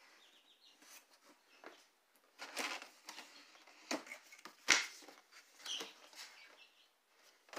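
Cardboard packaging being handled: a pen scratching along the seal of a collectible-figure box, then its cardboard end flap swung open and the inner box slid out, with rustling, scraping and one sharp tap a little past halfway.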